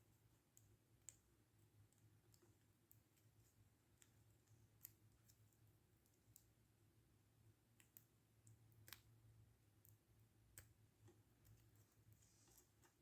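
Near silence broken by faint, scattered small clicks of tools on a circuit board as a new SMD resistor is placed, over a faint low hum.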